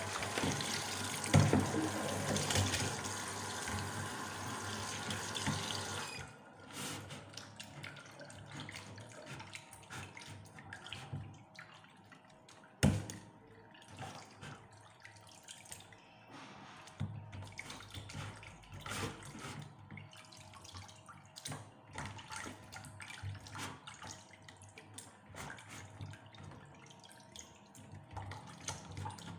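Kitchen tap running into a stainless steel sink, shut off about six seconds in, followed by hands splashing and rubbing in the water with scattered small clicks and one sharp knock against the sink about midway.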